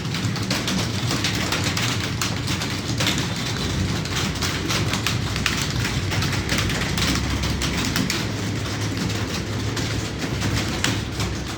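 Fast, continuous typing on a computer keyboard: dense rapid key clicks over a low hum.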